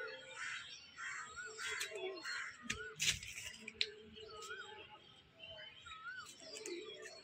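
Crows cawing several times in the first couple of seconds, with another bird repeating a short rising-and-falling whistled note. A single sharp knock comes about three seconds in.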